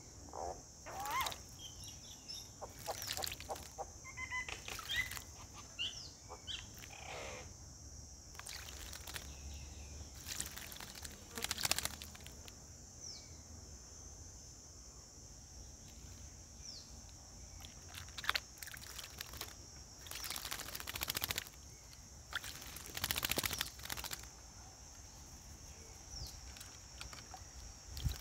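Common myna bathing in a basin of water: repeated short bursts of splashing and wing-flapping, about ten in all, with a few short bird chirps.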